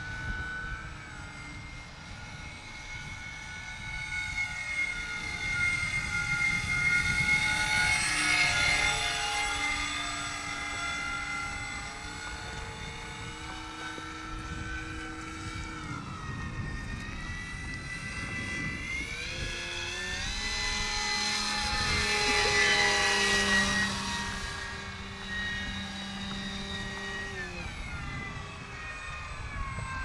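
Radio-controlled model airplane's engine and propeller running in flight, buzzing steadily with its pitch shifting up and down. It gets louder twice, around 8 and 23 seconds in, with the pitch dropping as it goes past.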